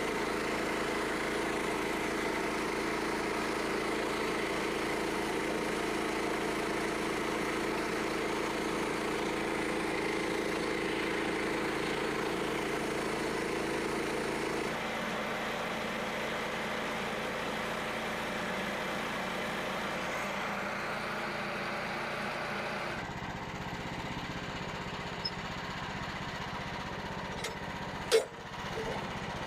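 Small gasoline engine of a portable band sawmill running steadily, its tone shifting twice. A short sharp knock sounds near the end.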